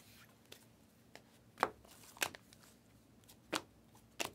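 Panini Prizm basketball trading cards being flipped through and set down by hand: about six sharp, short clicks and snaps of card stock, the loudest about a second and a half in.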